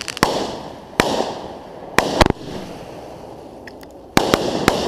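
Fireworks going off close to the microphone: about seven sharp bangs, some in quick pairs, each followed by a fading hissing rush.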